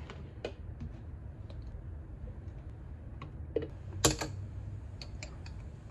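Small clicks and taps of a plastic single-serve blender cup and its screw lid being handled, then a glass jar, with a sharper clink about four seconds in as a metal straw goes into the jar. A low steady hum lies underneath.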